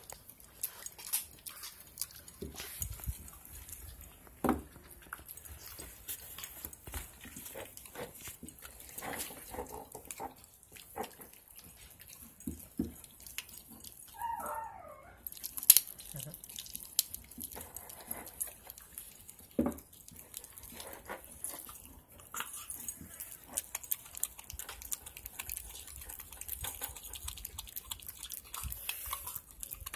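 Husky and malamute puppies gnawing raw chicken drumsticks, bone and all: a steady run of irregular wet crunches, cracks and clicks. A brief pitched puppy whimper comes about fourteen seconds in.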